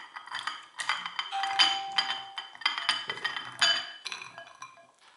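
Glass bowls clinking and ringing as chunks of white chocolate are tipped from a small glass bowl into a larger glass bowl and pushed off with a silicone spatula. A quick run of clinks that thins out and fades near the end.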